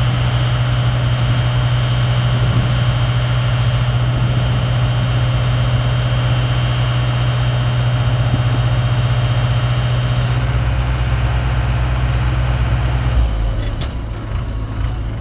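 Heavy excavator diesel engine running steadily at high revs with a deep hum. About ten seconds in the higher part of the noise drops away, and shortly after the engine note falls as it throttles down, with a few light clanks near the end.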